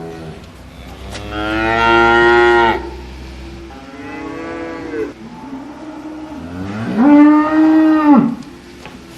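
Cattle mooing: three long moos a couple of seconds apart, the middle one fainter and the last the loudest.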